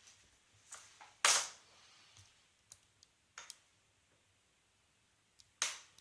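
A short hook pick and tension wrench working the pins of a brass Best six-pin padlock during single pin picking. Scattered small metallic clicks and scrapes come from the keyway, with two louder, briefly ringing clicks, one about a second in and one near the end.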